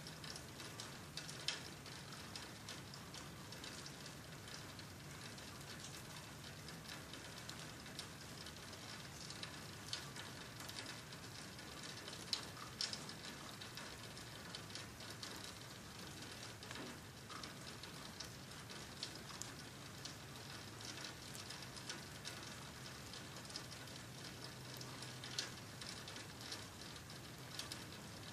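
Rain falling steadily at night, with many scattered drops ticking sharply on nearby surfaces.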